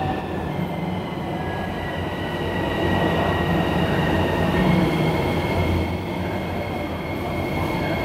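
Hitachi-built Miami Metrorail train pulling into an elevated station and running past the platform, a steady rumble of wheels on rail with thin high whining tones over it.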